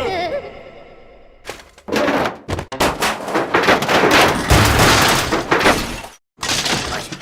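Cartoon slapstick sound effects: a fast run of loud crashes, thuds and breaking noises, starting about a second and a half in and cutting off briefly near the end.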